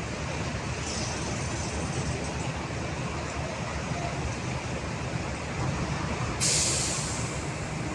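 Large mining dump truck's diesel engine running steadily as the truck creeps up the ramp into the ship's hold. About six and a half seconds in there is a loud burst of air-brake hiss lasting about a second.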